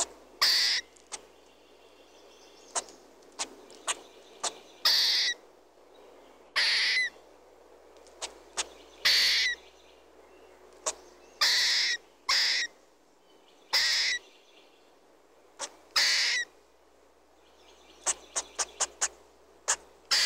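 Squirrel calling: a string of loud, hoarse calls of about half a second each, roughly every two seconds, with short sharp chips between them and a quick run of about six chips near the end. Faint birdsong runs underneath.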